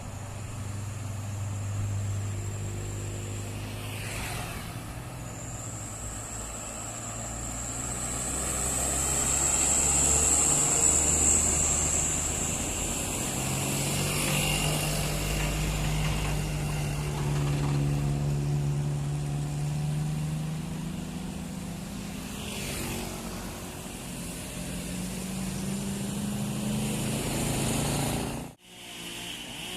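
Heavy diesel vehicles, buses and trucks, passing one after another on a steep hill road. The engine note swells and fades and rises in pitch as they labour past. The sound breaks off abruptly near the end.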